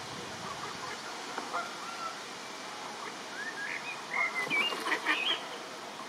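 Ducklings peeping: thin, high calls, some rising in pitch, scattered at first and then louder and more frequent about four seconds in.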